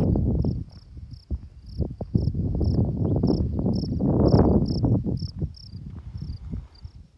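Wind buffeting the microphone in gusts, dying down near the end, over a steady train of high, insect-like chirps repeating two to three times a second.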